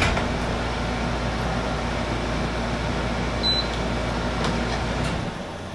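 Steady low mechanical rumble, like an engine or an air-conditioning unit running, which cuts off about five seconds in. A sharp click starts it off.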